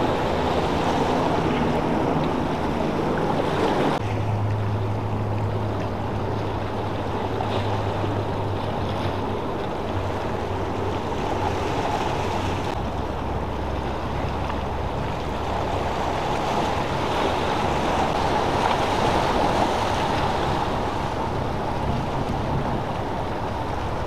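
Steady wind and water noise with the low drone of motor boat engines. The drone grows distinct about four seconds in and drops lower near thirteen seconds.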